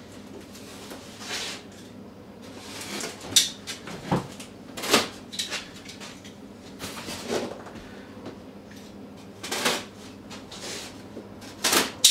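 Large cardboard box being handled and opened: irregular rustling and scraping of cardboard, broken by several sharper knocks and scrapes.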